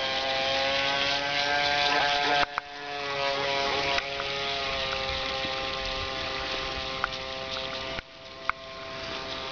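Ansmann Lugano RC model runabout running at speed: its electric motor and propeller drive give a steady whine with several pitches, sagging and recovering a little. The sound drops away sharply twice, about 2.5 and 8 seconds in, with a few sharp clicks. The drive shaft is one the owner calls badly vibrating.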